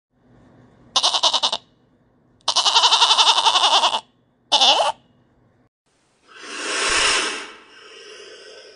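Goats bleating: three quavering bleats, a short one, a long one of about a second and a half, then another short one. Later a rush of noise swells and fades.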